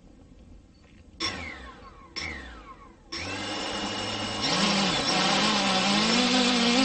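Brushless motors and 8-inch propellers of a hand-launched FPV quadcopter (Brother Hobby Avenger 2806.5 1700kv motors, HQ 8x4.5x3 props). It starts with two short throttle blips, each spinning up and winding down with a falling whine. About three seconds in the props start spinning steadily, and they get louder about halfway through as the quad lifts off, the pitch of the whine wavering with the throttle.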